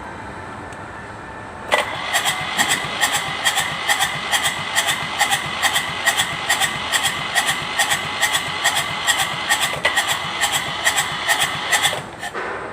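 Kubota Z751 two-cylinder diesel cranking on its electric starter, a steady starter whine with about four compression beats a second. It starts a couple of seconds in and stops after about ten seconds without the engine catching, typical of a hard-starting diesel.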